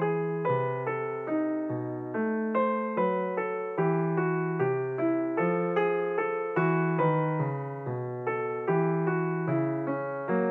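Background solo piano music: a gentle melody of single notes and chords, struck about twice a second, each fading before the next.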